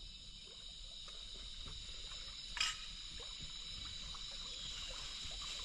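Faint steady outdoor background of high, even tones and hiss, with one sharp knock about two and a half seconds in.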